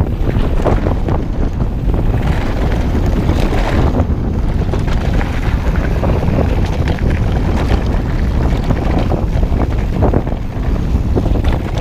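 Heavy wind noise buffeting an action camera's microphone as a mountain bike rides downhill, mixed with a steady rumble and frequent rattles and knocks from the bike over rough trail.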